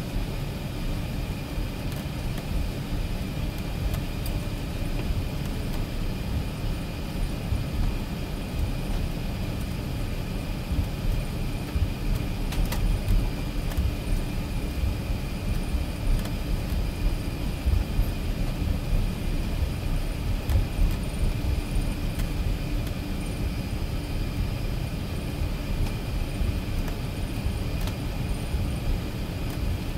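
Airbus A380 cabin noise while taxiing: a steady low rumble from the engines and rolling gear, with a faint steady high whine above it and small irregular swells in level.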